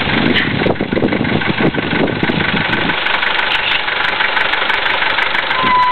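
Safari vehicle's engine idling steadily.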